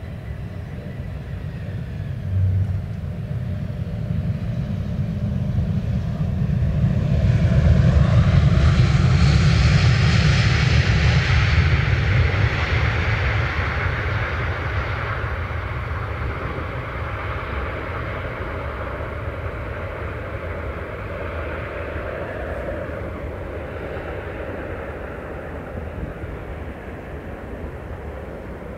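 Airbus A320-family airliner landing: a low jet-engine rumble on short final, swelling about seven seconds in into a loud rushing roar of reverse thrust after touchdown, which fades slowly as the plane rolls out.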